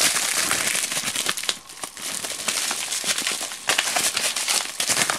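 Plastic bubble wrap crinkling as it is pulled apart and unwrapped by hand, a dense crackling full of small clicks that eases briefly about a second and a half in.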